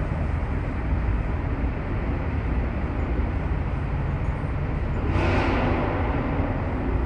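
Steady low rumble of a moving vehicle, with a louder rush of noise about five seconds in that lasts about a second.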